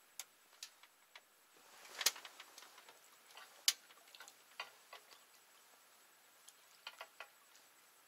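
Faint, irregularly spaced clicks and small knocks over a quiet hiss, with two sharper knocks about two and three and a half seconds in.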